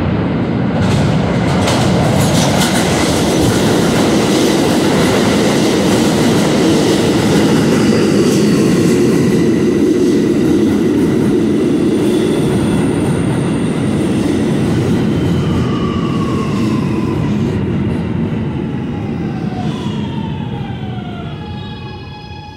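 R211A New York City Subway train arriving in the station: a loud, steady rumble of wheels and cars passing, with a few sharp clicks early on. From about two-thirds of the way through, several whining tones fall in pitch as the train brakes, and the noise fades as it slows nearly to a stop near the end.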